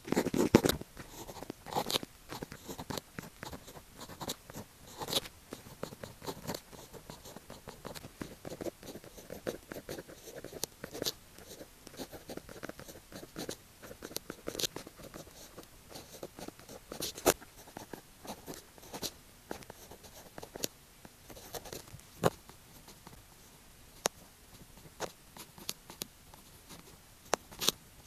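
Pen writing on paper: scratchy strokes broken by many sharp ticks as the tip lands and lifts, with a louder rustle of paper and hand in the first couple of seconds.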